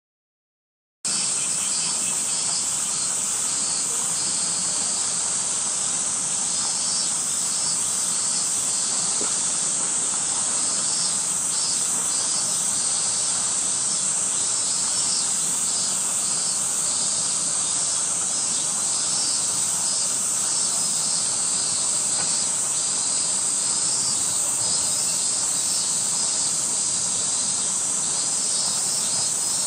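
A loud, steady chorus of summer cicadas: a high-pitched drone with a faster pulsing trill layered over it. It starts suddenly about a second in, when the sound cuts in after silence.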